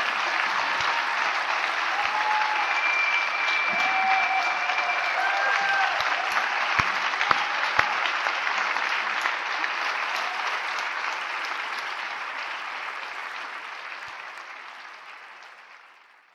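Large seated audience applauding steadily, with a few short calls over the clapping; the applause fades out over the last few seconds.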